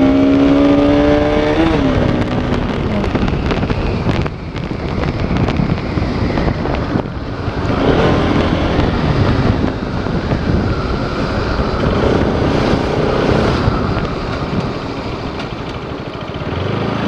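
Motorcycle engine, the Bajaj Pulsar RS200's single-cylinder, under way: its pitch rises at first, then drops off about two seconds in as the throttle is eased. After that, wind and road noise rushing over the bike-mounted microphone mostly covers the engine.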